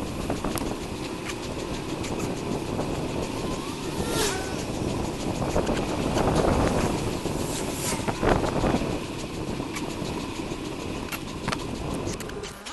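Traffic and riding noise from a moving bicycle: a steady rumble of wind and road, with vehicles whooshing past about four and eight seconds in, and scattered clicks throughout.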